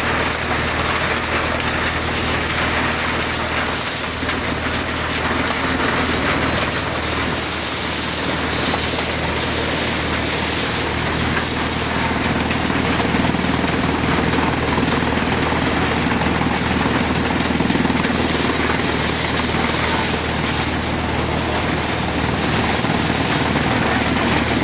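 Maize thresher running with a steady, loud drone while dry maize plants are fed into it.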